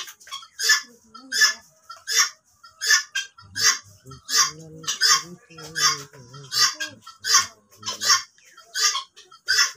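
Purple swamphens giving a rapid series of harsh honking calls, about three a second, without a break.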